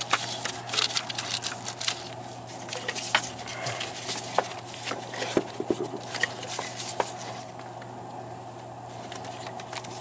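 Hands moving spark plug wires and ignition parts around an opened distributor: scattered light clicks, taps and rustles of rubber and plastic.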